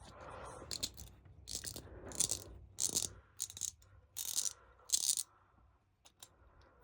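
Damaged, axe-battered cheap ratchet wrench being worked back and forth, its pawl clicking in about seven short rattling bursts over five seconds, then a few faint ticks. The mechanism still ratchets, but not smoothly.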